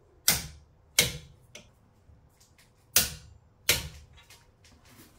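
Four sharp metallic clicks in two pairs, each pair about two-thirds of a second apart, from a Teng Tools 1/2-inch click-type torque wrench breaking as the brake caliper bolts reach their specified torque.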